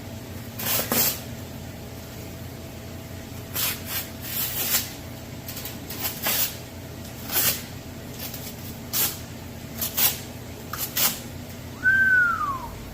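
Machete blade slicing through cardboard: about a dozen short, sharp cutting strokes at uneven intervals, with a brief falling squeak near the end.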